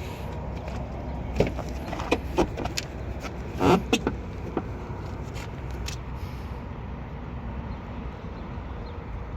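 A series of clicks and clunks from a car door handle and latch being tried on a door that is stuck and won't open, over a steady low background rumble.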